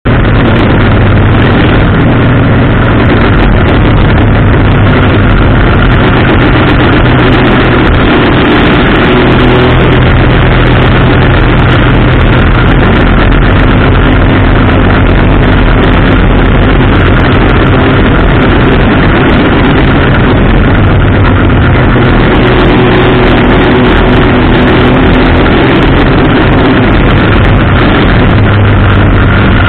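Race car engine running hard through the laps, picked up by a camera mounted on the car itself: a constant, overloaded drone with heavy rushing noise from the track. It stays at the same level throughout, with no clear lift or drop in engine speed.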